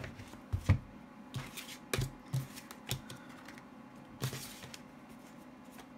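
Oracle cards being shuffled and handled on a table: irregular light clicks and taps of card stock, trailing off after about four seconds.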